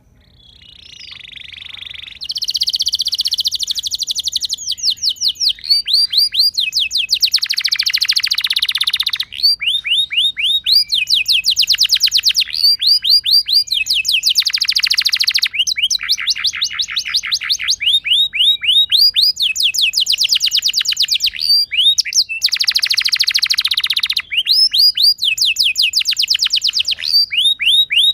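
Domestic canary singing a continuous, loud song of fast rolling trills and runs of short rising whistled notes, the phrase type changing every second or two.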